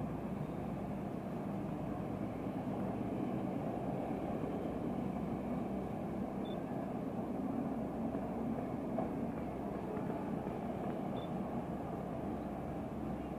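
Steady distant low engine rumble with no distinct events.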